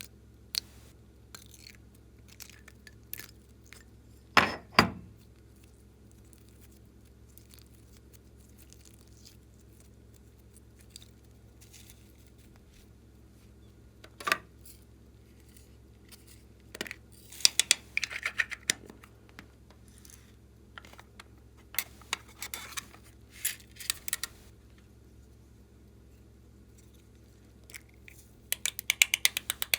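Glossy slime being pressed and stretched by hand, giving scattered sticky clicks and short bursts of rapid crackling pops, with two louder knocks about four and a half seconds in.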